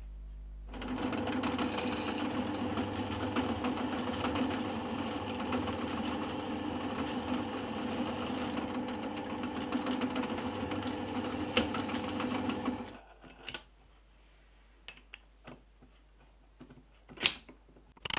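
Drill press running and drilling a hole for a sprocket pin through a metal shaft with a twist drill, a steady motor hum that stops about thirteen seconds in. Then several sharp taps of a small hammer driving the pin into a sprocket on the shaft, the loudest one near the end.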